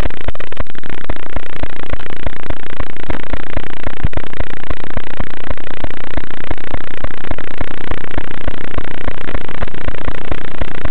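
Loud, steady static hiss with dense, irregular crackling from an analog FPV video receiver's audio channel.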